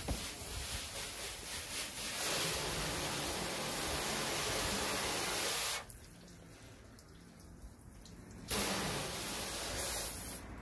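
Garden hose spraying water onto a car's hood, rinsing off the soap. The spray cuts off for about two and a half seconds midway and stops again briefly near the end.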